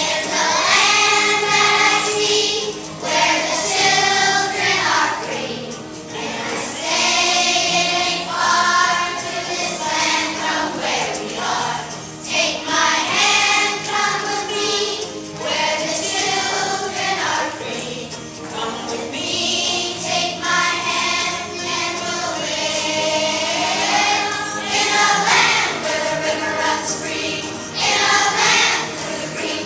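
A class of third-grade children singing together as a choir, a Veterans Day song, in phrases of held notes.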